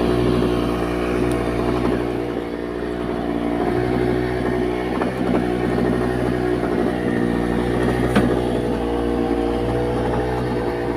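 An engine running steadily at a constant speed, with a light click about a second in and a sharper knock about eight seconds in.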